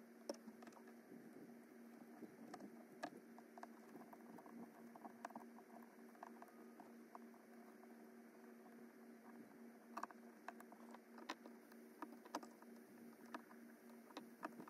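Faint scattered clicks and light taps over a steady low hum, with the clicks coming more often in the last few seconds.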